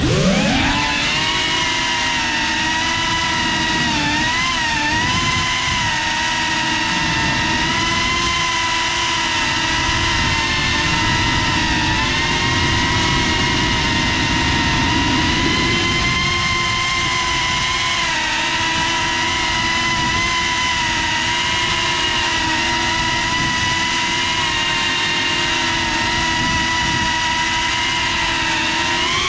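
FPV quadcopter's brushless motors and propellers whining steadily in flight, heard from the GoPro on board. The pitch climbs as the throttle comes up at the start, wavers briefly a few seconds in, and swings sharply up and back down near the end.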